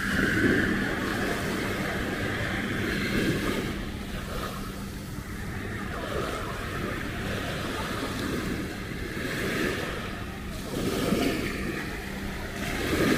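Small waves washing onto a sandy shore in slow swells, with wind buffeting the microphone and a faint steady low hum underneath.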